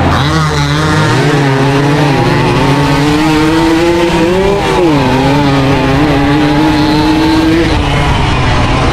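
Suzuki AX 100's small two-stroke single-cylinder engine running hard at high revs under full throttle. Its pitch wavers up and down, drops briefly about five seconds in, then climbs back and holds before shifting again near the end.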